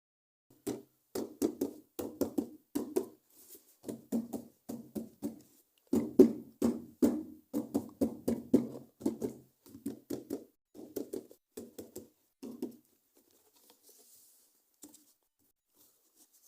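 Fingers tapping and handling toy packaging in quick, hollow-sounding taps, several a second, which stop about thirteen seconds in.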